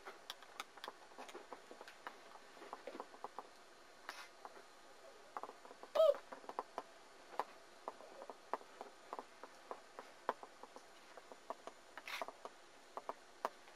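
Puppy and kitten playing on a quilted bed: faint scattered small clicks and rustles, with one short falling squeak about six seconds in and a brief scuffle near the end.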